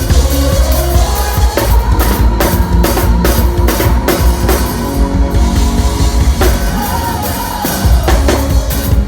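Live church-style band music: a drum kit keeps a steady beat over a bass line and a held sustained note.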